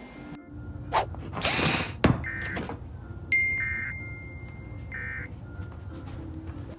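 Emergency Alert System end-of-message data bursts: three short, buzzy digital chirps about a second and a half apart, which close an alert. They are preceded by a couple of noisy hits and a sharp click, over a low hum.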